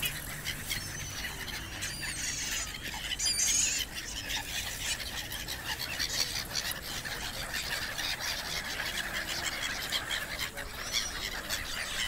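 A large flock of gulls calling, many high squealing calls overlapping one another.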